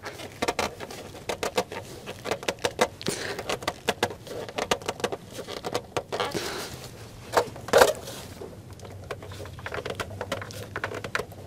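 Gloved hands giving a spin-on fuel filter its final tightening on a Cummins ISX15 diesel engine that is switched off: an irregular run of small clicks, taps and rubbing, with a few louder knocks.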